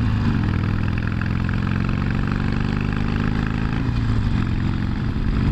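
Harley-Davidson Sportster's air-cooled V-twin engine running steadily under way, its pitch shifting briefly near the start and again about four seconds in.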